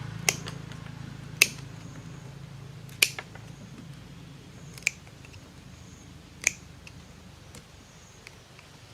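A series of sharp clicks or ticks, five loud ones at irregular intervals of one to two seconds and a few fainter ones, over a faint steady low hum.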